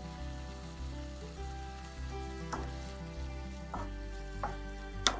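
Olives and sauce sizzling in a frying pan, stirred with a wooden spoon that knocks against the pan a few times in the second half, loudest near the end. Background music with a steady beat plays underneath.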